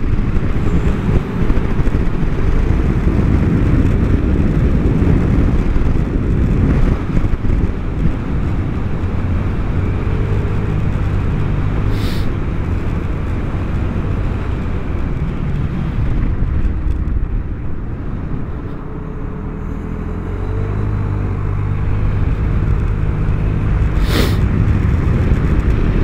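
Vespa GTS300 HPE scooter's single-cylinder engine running under heavy wind rush on the microphone while riding at speed, the engine note coming and going. Two short sharp clicks, about midway and near the end.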